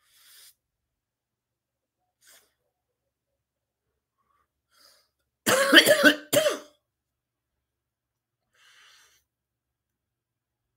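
A man coughing, two loud coughs close together about halfway through, while smoking a cigarette. Faint breaths come before and after.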